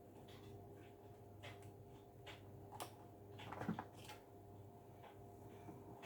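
Faint scattered clicks and light plastic taps of zip ties being handled and fastened, with a short cluster of clicks about three and a half seconds in, over a faint steady hum.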